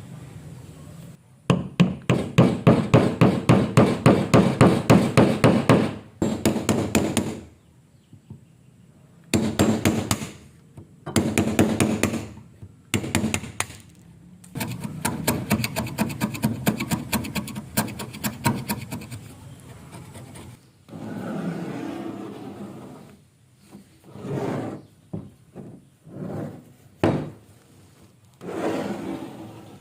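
Hand tools working a piece of timber: several runs of rapid, evenly repeated strokes on wood, the longest lasting about four and a half seconds, broken by short pauses, then shorter separate bursts near the end.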